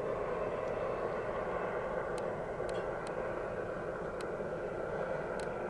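A large military helicopter in flight at a distance, its rotor and turbine engines making a steady drone. A few faint short ticks sound over it.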